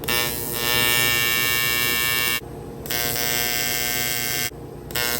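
Welding arc on aluminum, buzzing steadily in three runs. The arc breaks off for about half a second roughly two and a half seconds in, runs again for about a second and a half, then breaks and is struck again near the end.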